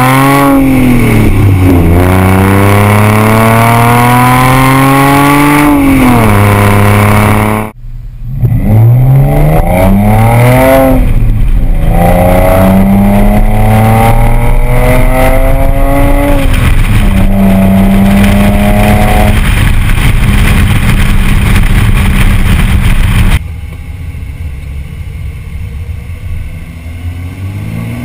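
Exhaust of a 2006 Audi A6 3.2 V6 with the mufflers removed (catalytic converters and resonators kept), heard from beneath the car. It accelerates through several upshifts, the note climbing, dropping at each shift and climbing again, then holds steady at a constant pitch. Near the end it turns much quieter.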